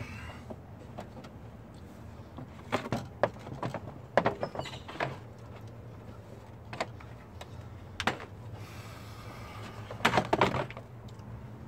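Plastic air filter housing and fan shroud in a truck's engine bay being shifted and handled, giving scattered sharp knocks and clatters with a brief scrape, and a cluster of knocks about ten seconds in. A steady low hum runs underneath.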